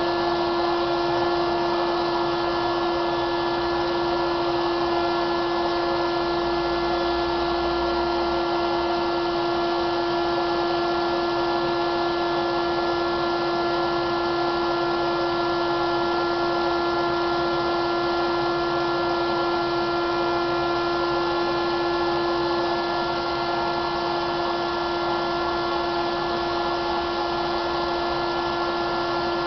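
Electric blower running steadily with a constant motor whine and a rush of air, forcing air through a hose to inflate a 350-gram weather balloon.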